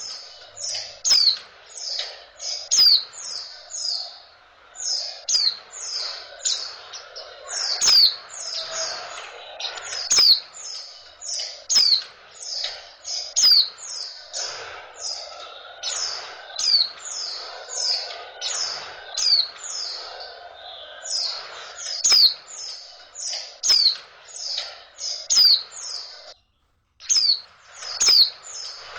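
Female white-eye (pleci) calling in rapid runs of short, high, downward-slurred chirps, several a second: a female call of the kind played to rouse male pleci into breeding condition. The calling drops out for about half a second near the end, then resumes.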